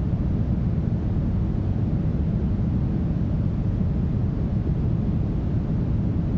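Smoothed brown noise: a steady, deep hiss with its weight in the low end and no changes.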